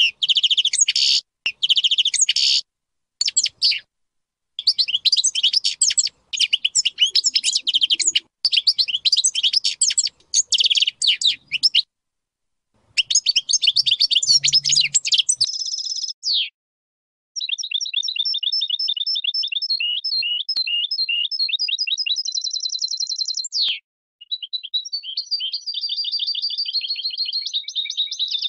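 European goldfinch of the large 'major' race singing: rapid twittering song phrases broken by short pauses, then from about halfway long unbroken runs of fast trills.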